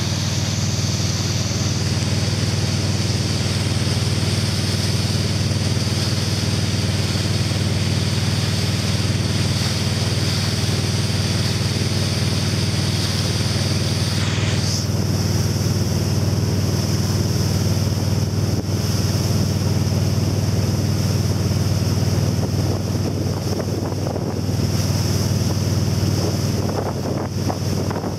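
1986 Supra 23 Salire ski boat's engine running steadily under load while pulling a wakesurfer, a constant low drone. Over it is the rush of the churning wake and wind on the microphone.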